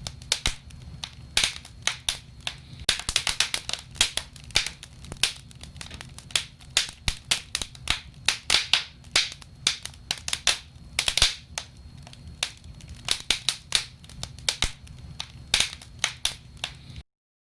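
Wood fire in a fireplace crackling and snapping: frequent sharp pops of burning logs, several a second, over a low steady rumble of the flames. The sound cuts off abruptly into silence near the end.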